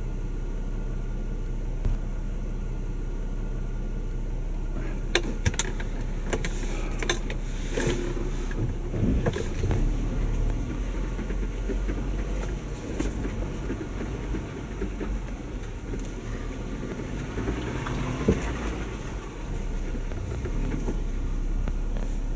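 A 2019 Jeep Wrangler Unlimited Sahara driving slowly over a dirt trail: a steady low engine and drivetrain hum, with scattered knocks and clicks.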